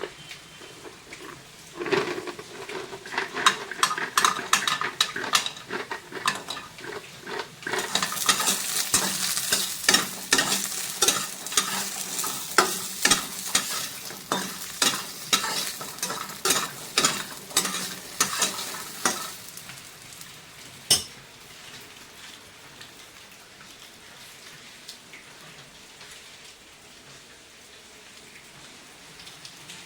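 Bori (sun-dried lentil dumplings) frying in hot oil in a pan, sizzling, with a spatula scraping and clicking against the pan as they are stirred. The sizzling is loudest in the middle and stops about two-thirds of the way through, followed by a single sharp knock.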